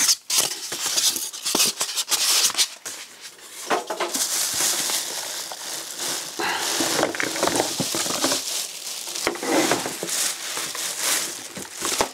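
Packaging being handled: plastic wrap crinkling while foam packing inserts and cardboard rub and scrape, as a boxed pump is unpacked by hand. The sound is an irregular run of crackles and rustles.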